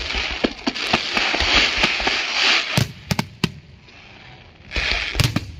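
Fireworks display: dense crackling for the first couple of seconds, then a cluster of sharp bangs from bursting shells about three seconds in. After a short lull comes another crackling burst with a loud bang near the end.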